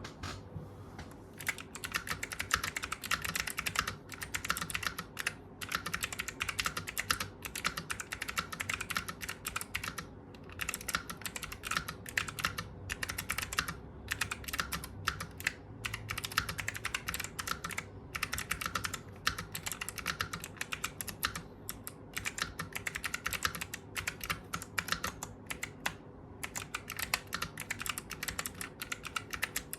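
Typing on an AKKO ACR64 mechanical keyboard with clicky Kailh Box White switches and PBT keycaps: fast, continuous key clicks broken by brief pauses, with a faint steady hum underneath.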